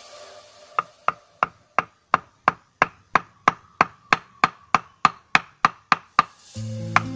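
A wooden club hammering the spine of a machete blade about three times a second, driving the blade into the base of a young amplas tree's trunk to split it. Each knock rings briefly. Background music comes back in near the end, with a few more knocks over it.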